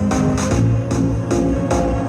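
Electronic background music with a steady beat and a strong bass line.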